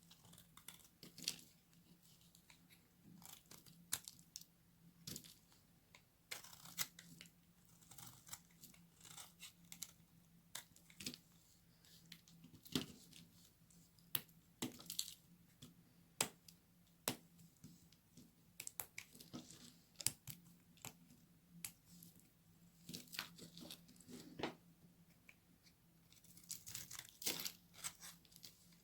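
Knife cutting through very dry soap: irregular sharp cracks and crisp crumbly crackling, with a louder snap every second or two.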